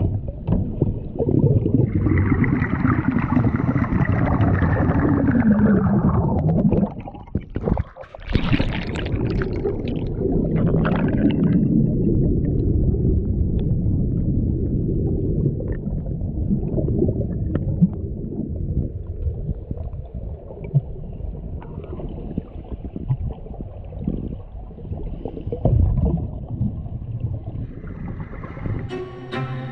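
Water gurgling and sloshing over a steady low rumble, with a brief drop about eight seconds in followed by a short rush of noise.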